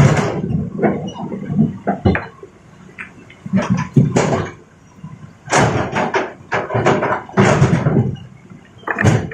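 Excavator handling mountain rock: irregular bursts of rocks scraping, clattering and tumbling, several loud clusters with short lulls between, over the faint steady hum of the machine.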